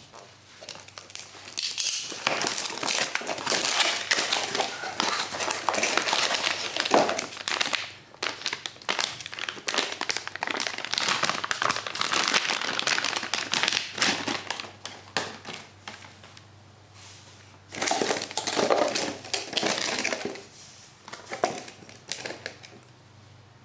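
Packaging crinkling and rustling as it is handled and unwrapped, in long stretches with a short lull in between.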